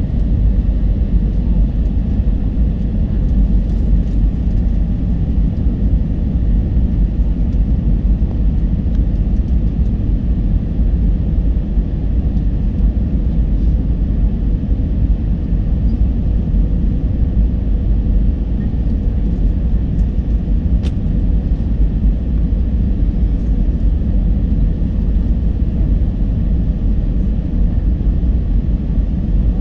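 Cabin noise inside an Airbus A320-214 descending to land: a steady, loud low roar of its CFM56 engines and rushing air, with a faint steady hum above it.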